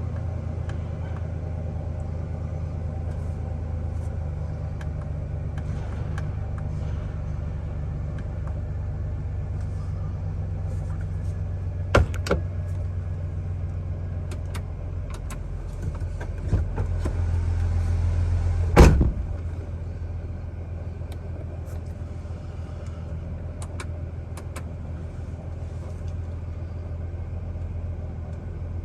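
Chevrolet Silverado pickup engine running at a very rough idle, a steady low rumble. Two sharp knocks stand out, one about twelve seconds in and a louder one about nineteen seconds in.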